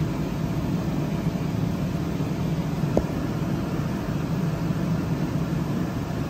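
Steady low machine drone with no change in pitch, and a single light click about three seconds in.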